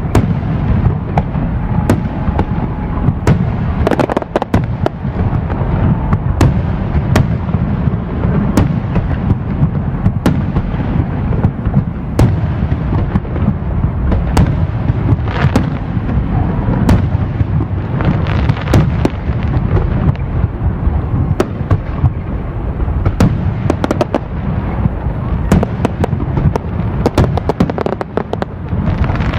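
Fireworks display with aerial shells bursting in rapid, continuous succession: a steady rumble of booms with many sharp cracks on top.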